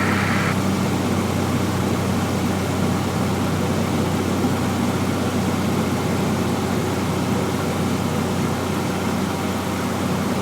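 Cessna 172F's Continental O-300 six-cylinder engine and propeller droning steadily, throttled back to low power for slow flight.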